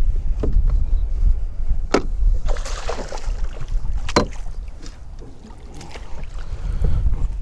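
Wind buffeting the microphone, with a hooked bass thrashing and splashing at the surface beside the boat and a landing net scooping it out of the water. A few sharp knocks and a short burst of splashing come between two and four seconds in.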